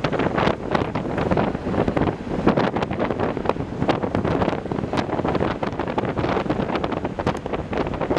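Wind buffeting the microphone of a camera on a moving vehicle at road speed: a loud, uneven rush with frequent irregular thumps and no clear engine note.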